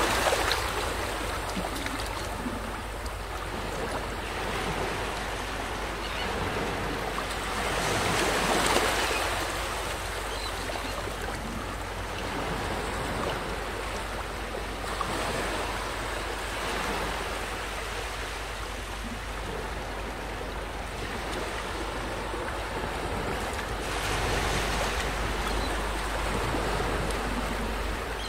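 Small waves breaking and washing up a sandy beach, the surf swelling and easing in surges every several seconds.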